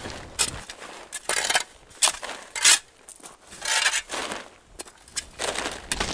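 A steel shovel blade repeatedly scraping and scooping into loose soil, the dirt tossed onto the edge of a polyethylene plastic sheet to bury it in a trench. It comes as a series of irregular scrapes and crunches a second or so apart.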